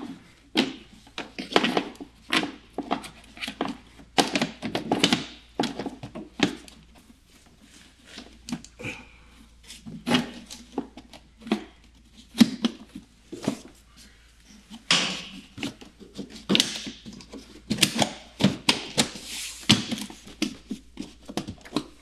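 Plastic cowl panel below a car's windscreen being fitted by hand: irregular clicks, taps and knocks as the panel is seated and its clips pressed home, with a few scraping rustles of plastic.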